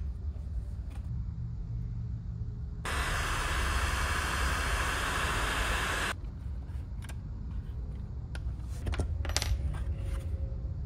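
Heat gun blowing a steady hiss for about three seconds, starting and stopping abruptly a third of the way in, as it shrinks heat-shrink tubing over a wire ferrule on the power cable. Small metal clicks and clinks of the ferrule, cable and fuse holder being handled come before and after.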